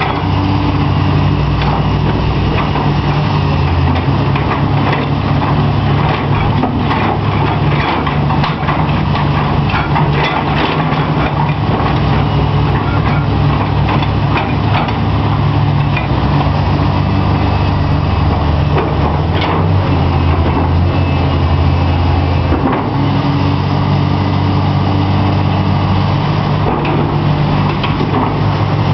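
Komatsu PC300 hydraulic excavators' diesel engines running together under working load as the booms and buckets swing, the engine note rising and falling. Scattered metallic clanks are heard in the first half.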